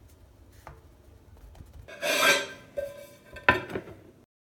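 Kitchenware being handled: a short scrape about two seconds in, then a sharp knock as a ceramic plate is set down on the counter.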